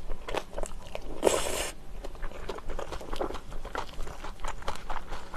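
Close-miked chewing of green onion kimchi: a run of small wet clicks and crunches, about three a second, with one louder hissing rush about a second in.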